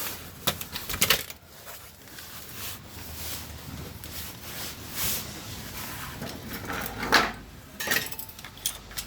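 Scattered light clicks, knocks and small metallic clatter over a low rustling, irregular and unevenly spaced: handling noise as tools and the camera are moved about under a car.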